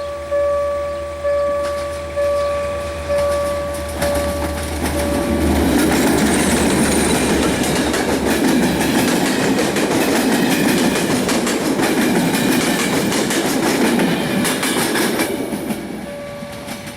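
A station signal bell rings in even strokes about once a second. About four seconds in, the bell gives way to an LDE2100 (EGM621) diesel-electric locomotive and its passenger train passing through, a loud rush of wheels and carriages for about twelve seconds. The bell strokes come back near the end.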